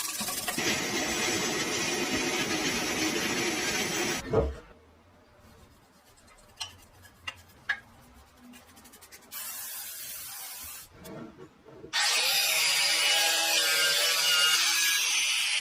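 A power tool working on the metal of a rusty lock for about four seconds, then a quiet stretch with a few sharp clicks, and the tool running again for the last few seconds.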